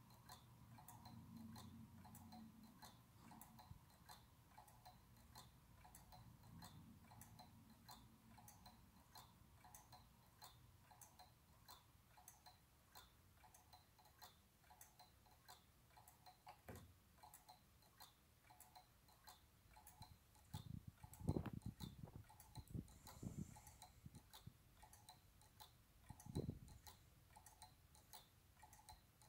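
Gearless pendulum clock (Dr Woodward's design, built to John Wilding's plans) ticking faintly and evenly as its escapement beats. About two-thirds of the way through, a few louder dull thumps cut in.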